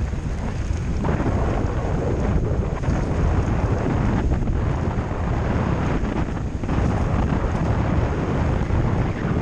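Wind buffeting a helmet camera's microphone as a mountain bike rides fast along a dirt track, mixed with the rumble of the tyres on the dirt. The noise dips briefly a few times.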